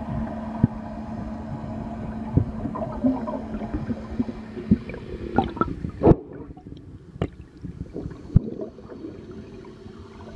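Heard underwater beside a fire boat's stern gear: a steady low hum from the boat's machinery carried through the water, with scattered sharp clicks and knocks. The hum drops out about six seconds in, leaving a quieter gurgling of water and a few more knocks.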